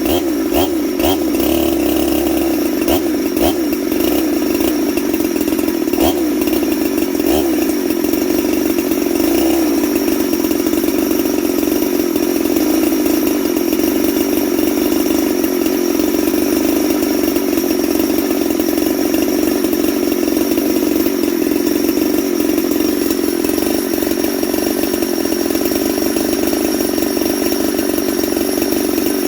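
Freshly built Husqvarna 372XP two-stroke chainsaw running steadily on its first run. Its carburettor is still being tuned: the idle screw was way off, and the owner thinks the low jet needs adjusting.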